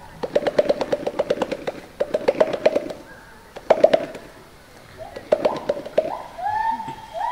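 Western gorilla beating its chest with its hands: four runs of rapid pops, each under a second long, in a display of high excitement.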